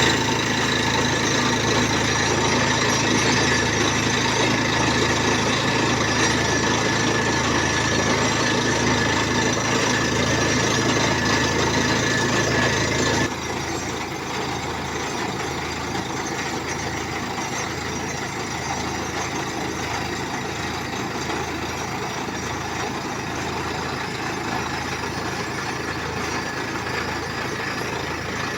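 Borewell drilling rig running steadily as it drills, with its engine running under load. About halfway through, the sound drops suddenly to a quieter, rougher level.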